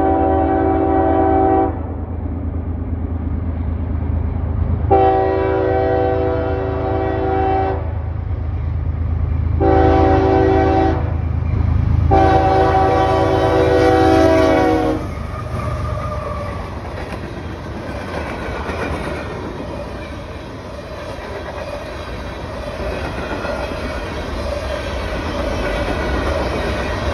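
CSX freight locomotive's horn sounding a chord in the grade-crossing pattern: the end of one long blast, then long, short, long. After the last blast the locomotives rumble past and the freight cars clatter by on the rails.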